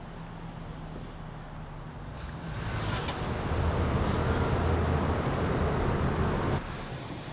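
Car engine running, growing louder about two and a half seconds in as the car moves forward, then cutting off abruptly near the end.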